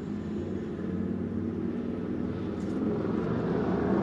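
Low, steady engine hum, as of a motor vehicle running, slowly growing louder.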